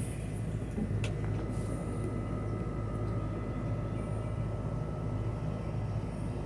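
A steady, low engine-like hum, with a single click about a second in and a faint steady high tone joining shortly after.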